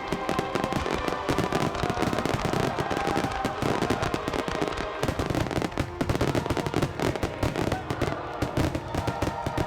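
Large aerial fireworks display: a dense, continuous barrage of shell bursts and crackling, with show music underneath.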